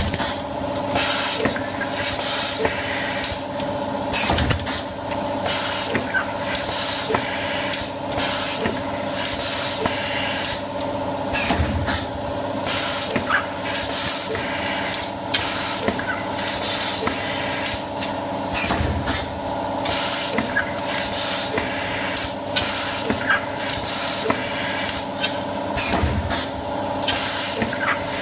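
Automatic creasing-rule cutting machine running: a steady motor hum, with short hisses of compressed air and sharp clicks repeating all through as its pneumatic cutter chops the rule into pieces.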